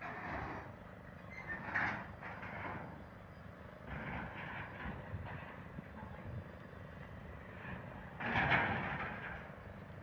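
Construction-site machinery and vehicle noise, a steady low rumble. Two louder swells stand out, about two seconds in and again near the end.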